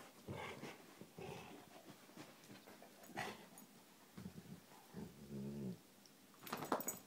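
Two dogs scuffling over a fabric rope toy, with one short, low dog growl about five seconds in and a few sharp clicks near the end.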